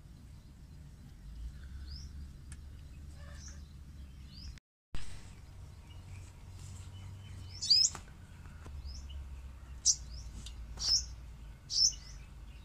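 Small birds chirping: short, high, rising chirps, a few faint ones in the first half and four louder ones close together in the last five seconds, over a faint low background rumble.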